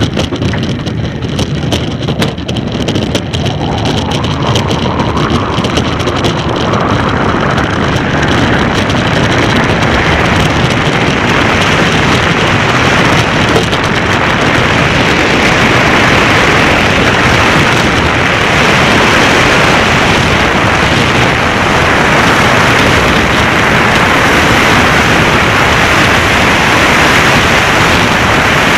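Bobsleigh running down the ice track: its steel runners on the ice and the rushing air make a loud, steady rushing noise that builds over about the first ten seconds as the sled gathers speed.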